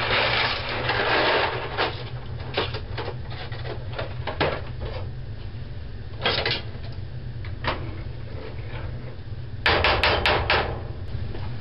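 Dry pasta tipped from its box into a pot of boiling water, a dense rattle for about the first second and a half. Scattered clicks and knocks follow, with a louder cluster of knocks near the end.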